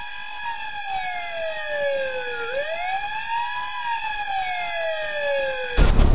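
Siren wail in the song's soundtrack, slowly rising and falling about twice over a steady held tone. The full music kicks back in loudly near the end.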